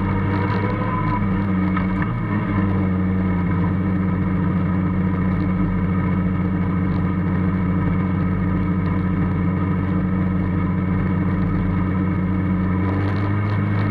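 Formula Student race car's engine heard on board, running at a steady, nearly constant speed while cruising, with a slight change in pitch about two seconds in and again near the end.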